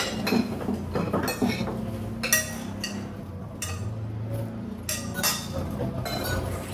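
Spoons and forks clinking against plates during a meal, in irregular light taps and clinks.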